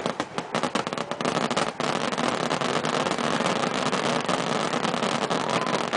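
Fireworks fired in rapid succession: sharp bangs and crackles that thicken into a dense, continuous rumble.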